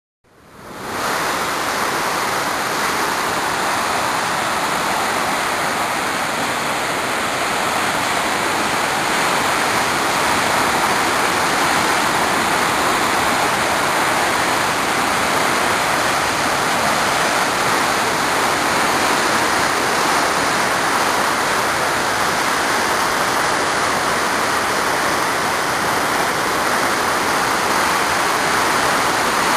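Waterfall rushing: a steady, dense roar of falling water that comes in within the first second and holds unchanged.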